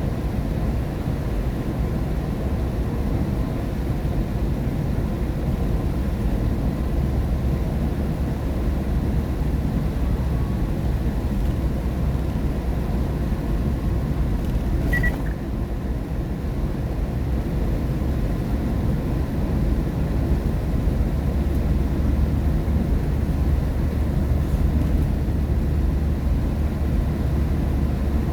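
Steady road noise inside a car driving on a wet expressway in the rain: a low rumble of tyres and engine with rain hiss over it. There is a brief faint click about fifteen seconds in.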